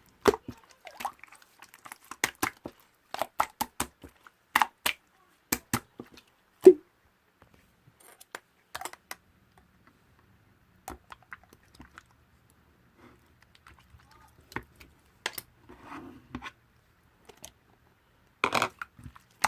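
Slime being squished and pressed by hand, giving irregular sticky clicks and pops with short pauses between them. The loudest pop comes about a third of the way in, and a denser burst of squishing comes near the end.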